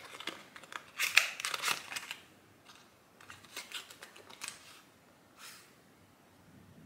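Cosmetics packaging being handled and opened: a run of small clicks and crinkly rustles of a little box, loudest about a second in, with quieter bursts a couple of seconds later and one more near the end.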